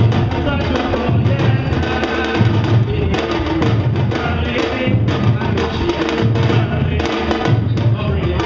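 Samba-reggae drum ensemble playing live: surdo bass drums, repiniques and timbau in a steady groove, the deep surdo strokes repeating in a regular pattern under busier high drum strokes.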